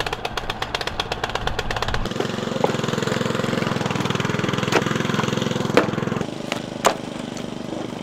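Small engine of a tracked motorised power barrow running, with rapid even firing pulses. About two seconds in the sound changes to a steadier, deeper drone, with a few sharp knocks. The engine gets quieter a little after six seconds.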